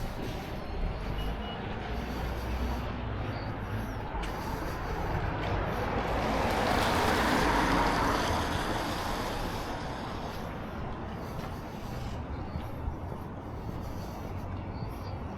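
A motor vehicle driving past close by over a steady low traffic rumble. Its noise swells to a peak about seven seconds in and then fades away.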